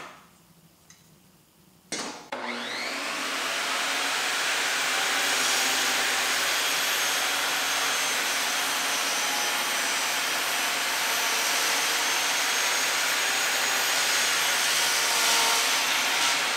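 Table saw switched on about two seconds in, its motor spinning up with a brief rising whine and then running steadily while the blade cuts through a pine board. A sharp click comes just before the saw starts.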